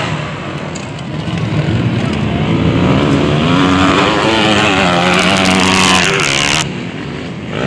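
Motocross dirt bike engines revving, their pitch rising and falling as the throttle opens and closes. The sound drops away suddenly about a second before the end.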